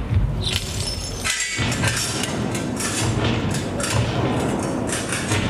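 Battle sound effects from a show's loudspeakers: clinking, crashing and breaking noises over low thumps that come about once a second.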